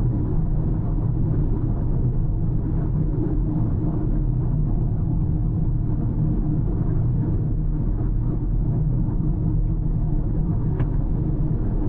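Car driving along a road: a steady low rumble of engine and tyre noise, with one short click near the end.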